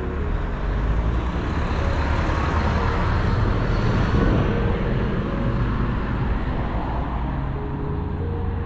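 A road vehicle passing by, its noise swelling to a peak about four seconds in and then fading, over faint background music.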